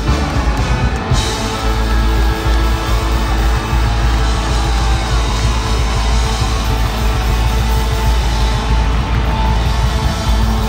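A live rock band playing at full volume, with electric guitar.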